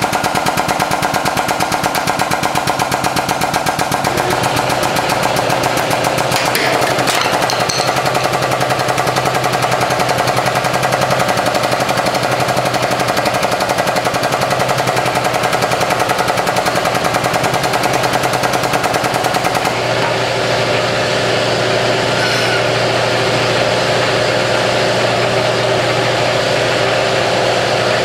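Hydraulic press pump running with a fast, even rattling pulse while the ram crushes the broken pieces of a Fox 15 model airplane engine, with one or two sharp cracks about six to seven seconds in. About twenty seconds in, the rattle gives way to a steadier drone as the ram comes back up.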